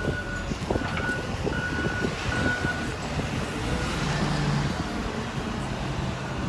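Road-construction machinery: a reversing alarm beeping evenly, a little faster than once a second, stopping about three seconds in, over the low rumble of a heavy machine's engine.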